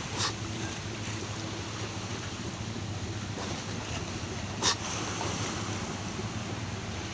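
A ferry's engine running with a steady low hum under the rush of wind on the microphone and waves against the ship. Two brief sharp hits cut through, about a quarter second in and again about two-thirds of the way through.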